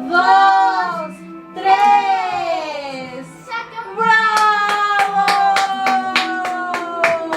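A child's singing voice with swooping, sliding notes over background music. In the second half one long note glides steadily downward while hands clap about three times a second.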